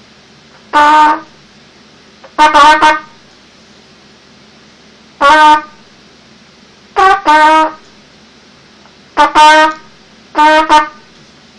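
Mendini student trumpet sounding Morse code: short and longer blasts on a single pitch, grouped as dots and dashes, about ten notes in six groups with pauses between them.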